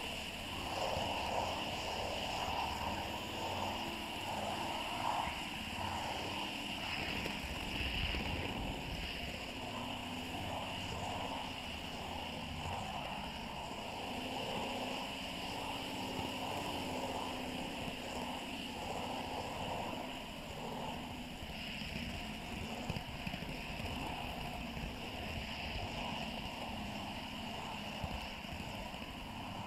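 Model train running fast along the track: a steady rumble of wheels on rail with a constant motor whine, and a few brief clicks as it rolls over rail joints and points near the end.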